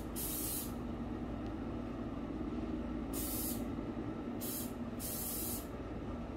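Aerosol spray can sprayed in four short hissing bursts, each about half a second long: the first at the start, then three close together from about three seconds in. A steady low hum runs underneath.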